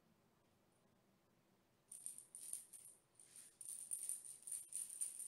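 Small cat toy shaken by hand, rattling and jingling in quick, uneven bursts that start about two seconds in.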